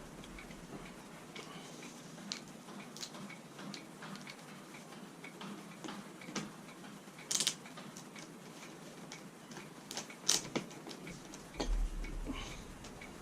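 Scattered light clicks and small metallic knocks of hand-tool work on a car seat frame, with a short louder noise about seven seconds in and a sharp knock about ten seconds in.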